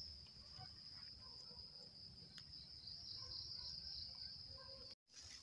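Faint night-time chorus of crickets: one steady, unbroken high trill, over a low rumble of background noise. It breaks off for an instant near the end.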